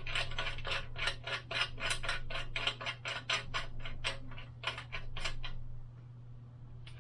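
Ratchet tool clicking in a steady rhythm, about three clicks a second, while removing the bicycle's crank arms; the clicking stops about five and a half seconds in. A steady low hum runs underneath.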